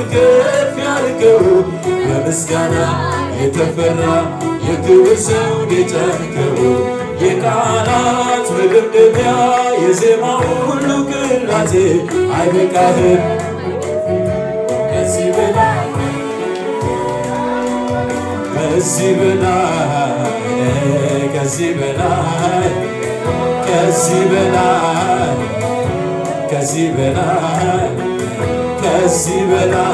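Amplified male voice singing an Amharic worship song into a microphone, with instrumental accompaniment.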